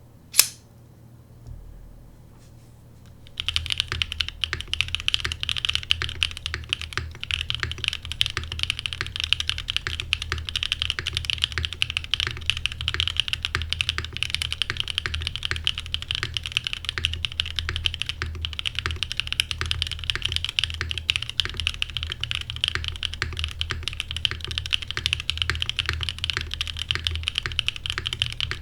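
Continuous fast typing on a custom Frog Mini mechanical keyboard with lubed Cream Soda switches on a half FR4 plate and GMK keycaps, starting about three seconds in after a single sharp click near the start.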